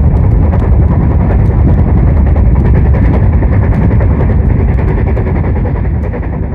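Running noise of a moving passenger train heard from an open window or door of its coach: a loud, steady rumble of wheels on rails with wind rush. The noise eases slightly near the end.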